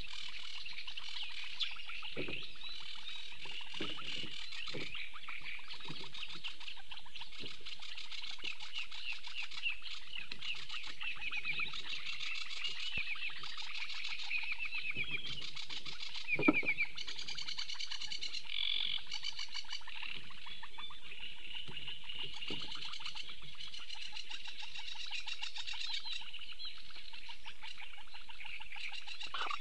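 Reedbed chorus: small songbirds keep up continuous rapid chirping song, with short low croaks from frogs mixed in, and one brief louder sound about halfway through.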